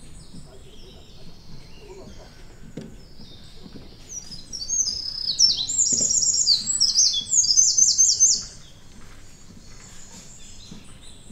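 A songbird singing in the forest: a loud, fast run of high repeated notes, from about four seconds in for about four seconds, with fainter high bird calls before and after.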